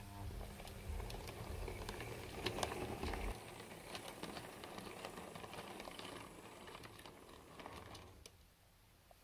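OO-gauge model train rolling along the track: the wheels click and rattle irregularly over rail joints and pointwork, with a light mechanical whir, until it stops about eight seconds in.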